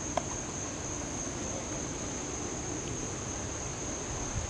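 Outdoor ambience with a steady, high-pitched drone of insects, over a low rumble of wind and distant background noise. There is one brief click just after the start.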